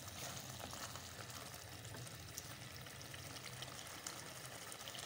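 A thick mutton-liver masala simmering in a pot, bubbling and sizzling faintly and steadily over a low hum.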